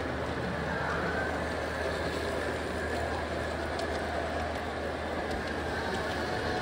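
Model train running along its track close by, a steady rolling rumble with a low hum underneath.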